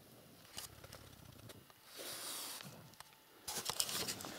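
Rustling and scraping in dry grass and soil as a trapped badger digs and moves at its burrow mouth, then from about three and a half seconds in, crunching footsteps through dry grass and leaves with loud crackles.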